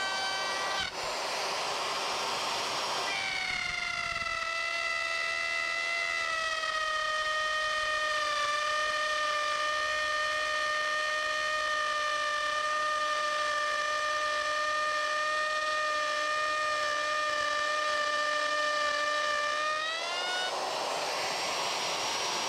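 Handheld electric router running and cutting along a template, a steady high whine with a rough cutting noise. The pitch drops a few seconds in, holds steady for most of the time, and rises again near the end.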